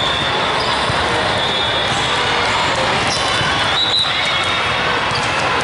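Steady din of a large indoor volleyball hall with many courts in play: balls bouncing and being struck, mixed with the chatter of players and spectators.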